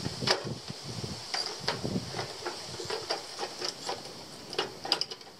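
Tin snips cutting a painted sheet-metal window drip sill: a quick, uneven series of sharp metallic snips, two or three a second, as the blades bite along the sheet.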